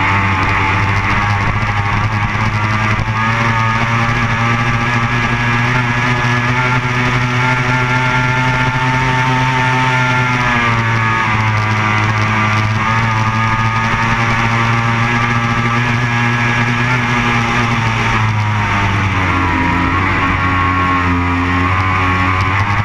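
Racing powerboat engine running at speed, a loud steady drone whose pitch sags and recovers about ten seconds in and again near the end.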